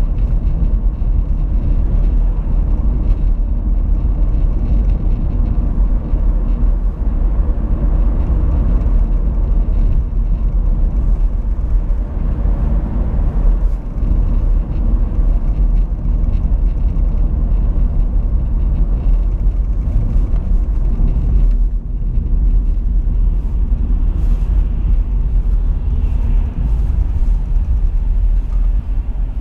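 Car cabin road noise picked up by a dashcam: a steady low rumble of tyres and engine at speed on a dual carriageway, dipping briefly about three quarters of the way through and easing slightly near the end as the car comes up to queuing traffic.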